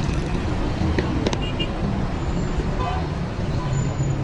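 Steady low rumble of road traffic, with two sharp clicks about a second in.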